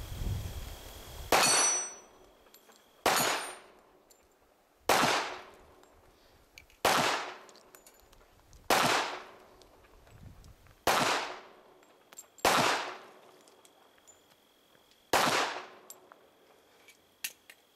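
Eight handgun shots fired at steel plates, spaced about two seconds apart, each followed by a brief ringing clang of struck steel.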